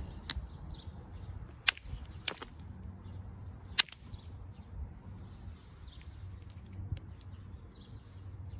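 Copper-tipped bopper striking the edge of a flint biface, several sharp, irregularly spaced cracks, two of them in quick pairs, as thinning flakes are knocked off.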